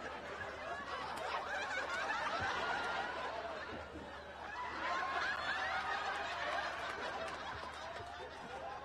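Sitcom studio audience laughing, many voices together, rising in two swells: one about a second in and another about five seconds in.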